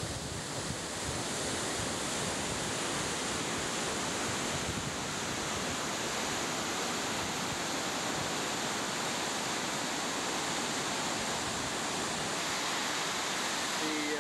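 Mill Creek in flood, running at about 3,500 cubic feet per second: a steady rush of fast, turbulent water, with some wind on the microphone.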